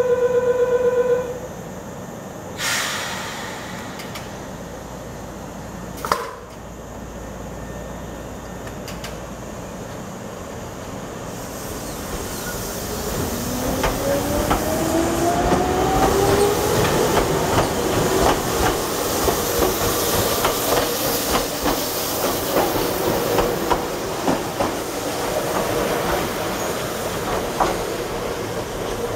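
A Nagano Electric Railway 8500 series electric train pulls away. A pulsing buzz stops about a second in, a short hiss of air comes about three seconds in, and a sharp click follows at about six seconds. Then the train's running noise builds, with a motor whine rising in pitch as it gathers speed and wheels clicking over rail joints.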